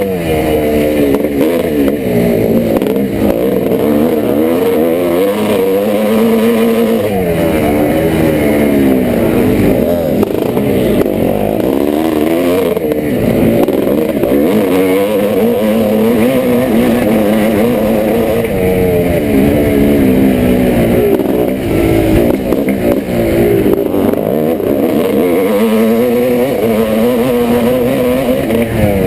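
1986 Yamaha YZ490's single-cylinder two-stroke engine running hard, its pitch rising and falling again and again as it revs up and drops back.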